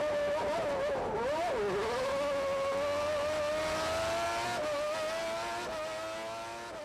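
Formula One car engine heard from the cockpit at high revs. The pitch dips sharply about a second and a half in as the car lifts and shifts, then climbs slowly in one long pull, fading near the end.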